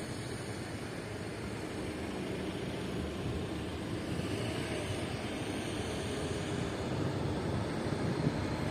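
A motor vehicle running: a steady low rumble that slowly grows louder.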